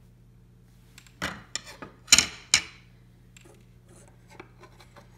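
Resin-handled bamboo kitchen utensils clacking against a stone countertop as they are handled: a handful of sharp knocks between one and three seconds in, then a few lighter taps.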